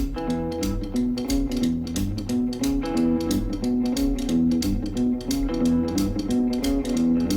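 Intro music: a guitar-driven instrumental with electric guitar, bass and a steady beat.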